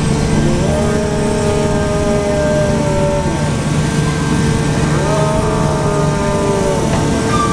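The Great Elephant walking machine's diesel engine and hydraulics running steadily as it walks. Twice a whine rises, holds for two to three seconds and falls away, about half a second in and again about five seconds in.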